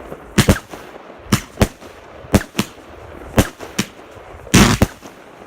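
Fireworks going off: a string of sharp bangs, often in close pairs, about every second, with a louder, longer burst near the end.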